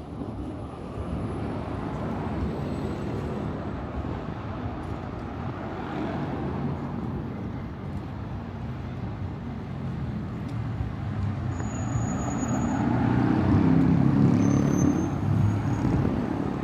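Urban road traffic running steadily, with a vehicle passing close and growing loudest about three-quarters of the way through.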